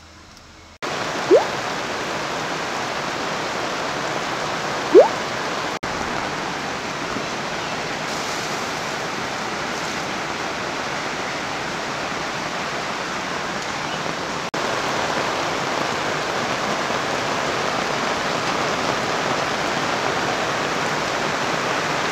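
Steady rushing water, a river's flow and rain, starting suddenly about a second in and stepping up slightly past the middle. Two short rising whistles cut through it early on, about four seconds apart.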